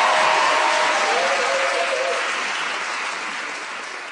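Studio audience applauding at the end of a comedy routine, the applause dying away toward the end.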